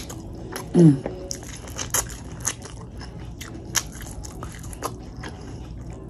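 Close-miked chewing of a mouthful of Cajun corn, with many short wet smacks and clicks of the lips and mouth. A short hummed "mm" falling in pitch about a second in is the loudest sound.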